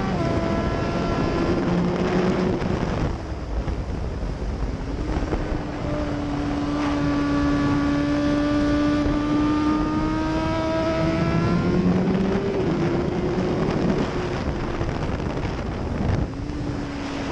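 Suzuki GSX-R1000's inline-four engine running at highway speed under the rider, with wind rushing over the microphone. The engine note holds fairly steady, dipping about three seconds in and rising again around twelve seconds in as the throttle changes.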